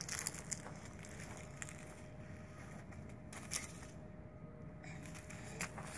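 Faint, scattered crackling and rustling of dry fallen leaves and grass, handled and stepped on by a small child.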